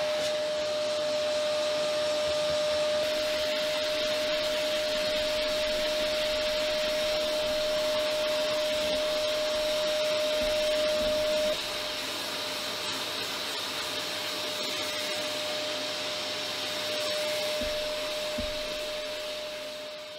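Vacuum cleaner running steadily, its hose nozzle held against a cat's fur. A steady whistle in the airflow becomes much fainter about halfway through.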